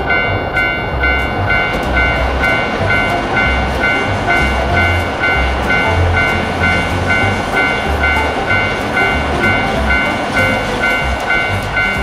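Japanese railroad crossing bell ringing its rapid "kan-kan" at about two strikes a second while an electric commuter train runs past over the tracks.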